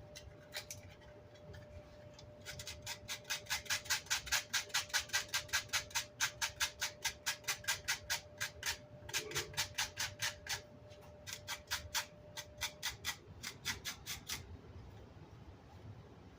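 Quick back-and-forth scrubbing strokes on amplifier grille cloth, about four a second, working wood chips and glue out of the mesh. The strokes start a couple of seconds in, pause briefly, and stop near the end.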